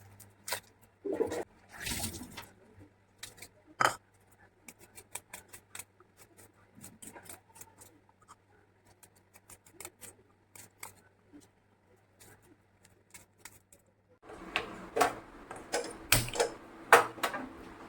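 Scattered light taps and clicks of kitchen utensils and cookware being handled. About fourteen seconds in, a steady hiss starts under louder clatter.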